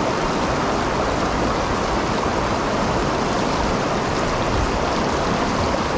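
Upstream mountain river running, a steady rush of water.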